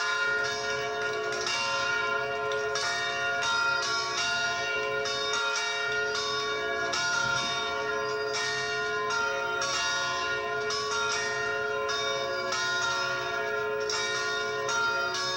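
Several church bells ringing together, struck over and over about once a second, their long tones overlapping.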